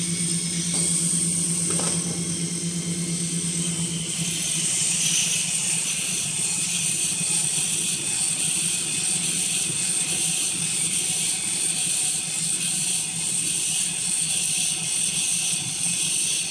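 Tissue-paper converting machinery running. First a toilet paper rewinder with a steady hum and a high hiss. The hum stops about four seconds in, and a band saw log-cutting machine runs with a high hiss that pulses in a regular rhythm.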